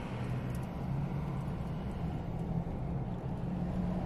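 Pickup truck driving, heard from inside the cab: a steady low engine and road drone with rushing wind noise over it.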